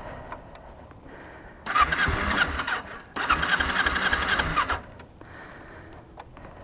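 Kawasaki Ninja 250R parallel-twin engine being cranked on its electric starter in two attempts, the first about a second long and the second about a second and a half, each with a fast even churning pulse.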